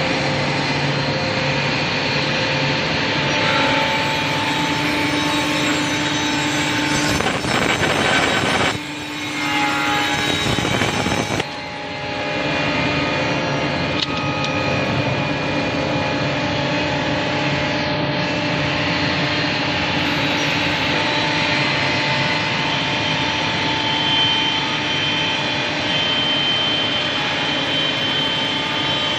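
CNC scroll saw running, a steady mechanical whine with constant tones and two brief dips in loudness about nine and twelve seconds in.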